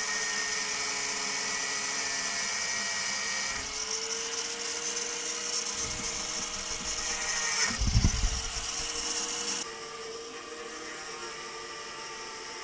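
Angle grinder cutting through the seized upper nut of a sway bar end link, a steady high-pitched grinding hiss. There is a low thump about eight seconds in, and the noise drops quieter near ten seconds in.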